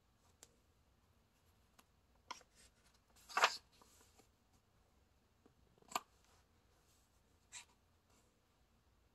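Paper rustling as a picture book's page is turned by hand, loudest a little past three seconds in, with a few short taps and rustles from handling the book before and after.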